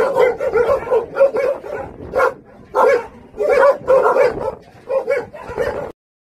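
Jindo dog barking in a quick run of short barks, several a second, with a brief pause partway through; it cuts off abruptly near the end.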